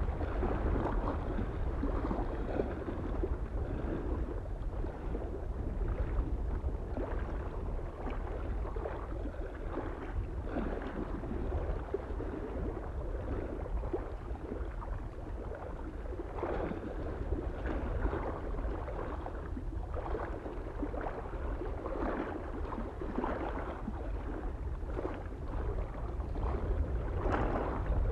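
Small waves lapping and splashing unevenly against a lake shore, over a steady low rumble of wind.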